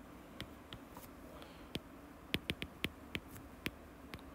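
Stylus tapping and sliding on a tablet's glass screen during handwriting: a scatter of short, sharp ticks, most of them bunched in the second half.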